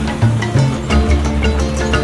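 Background music with deep bass notes and a steady beat.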